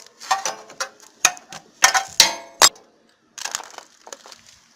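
Metal hand tool clicking and clinking on a generator's air-filter and carburetor fittings as a screw is undone: a string of sharp clicks over the first three seconds, then a brief scrape.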